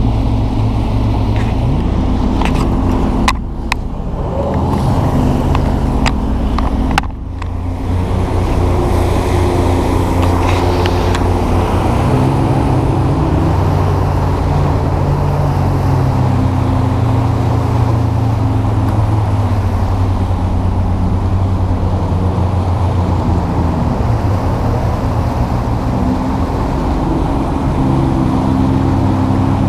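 Vehicle engine running continuously, its pitch drifting up and down with the throttle, with brief drops in level about three and a half and seven seconds in.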